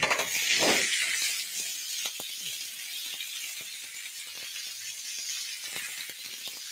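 Chicken kebabs sizzling on a hot griddle pan: a steady hiss, with a louder scrape near the start and scattered light knocks and taps.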